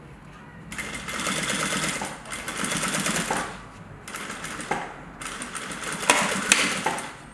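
Sewing machine stitching through waxed canvas in about four short runs with brief pauses between them, sewing back and forth for a double tack that reinforces the top of a pocket slot. Two sharp clicks come during the last run.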